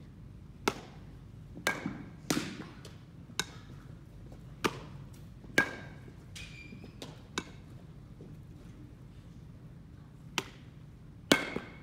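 Irregular sharp knocks and smacks of baseballs during fielding practice: balls coming off a bat, bouncing and being caught, about nine hits spread unevenly, several with a short metallic ring.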